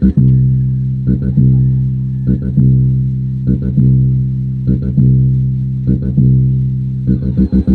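Bass-heavy music played through a Crown EW-520 speaker in a sound box as a sound test. Long, sustained low bass notes change about once a second, with light ticks above and little treble.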